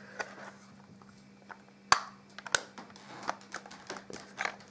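Hard plastic clicks and taps as a battery-operated toy mirror is handled and its battery compartment opened. A sharp click comes about two seconds in and another about half a second later, with lighter ticks around them.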